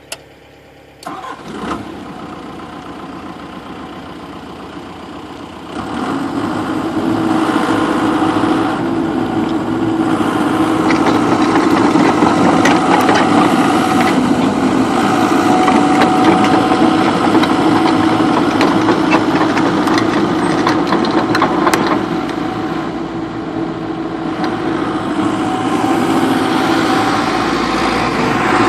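John Deere 120C excavator's 4.5-litre turbocharged four-cylinder diesel cranking and catching about a second in, then idling. About six seconds in it comes up to higher revs and runs steadily as the machine is worked, with scattered knocks.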